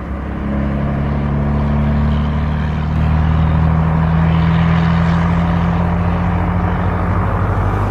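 Heavy truck's diesel engine running with a deep, steady drone that swells slightly about half a second in.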